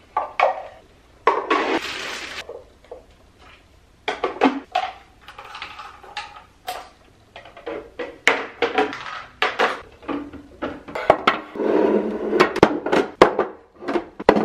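Clear plastic organizer bins and their lids clicking and clacking as they are handled, filled and set down, with bursts of crinkling plastic packaging. The taps and knocks come irregularly and are busiest near the end.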